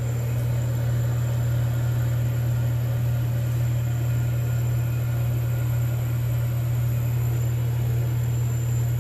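Steady low electric hum of a 50 W laser engraver's running air-assist pump and cooling water pump.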